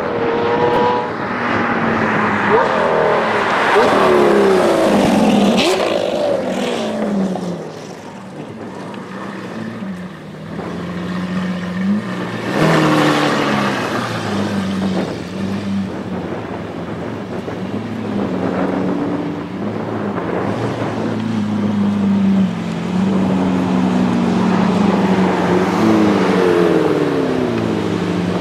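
Lamborghini Aventador V12 and McLaren 650S twin-turbo V8 supercar engines, loud: hard acceleration with the revs rising and dropping through gear changes over the first several seconds, a sharp crack about twelve seconds in, then a steady engine note with repeated revving rises and falls near the end.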